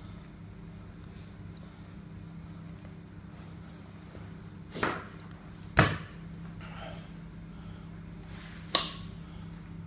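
Three sharp knocks on a butcher's cutting board, about five, six and nine seconds in, the middle one the loudest, as a slab of beef ribs is cut apart and handled with a knife. A steady low hum runs underneath.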